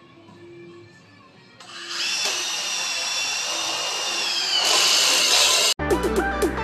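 A Milwaukee cordless drill starts about a second and a half in and runs steadily under load in a wooden beam, a high whine that dips slightly in pitch and then gets louder before cutting off abruptly. Electronic music starts right after, near the end.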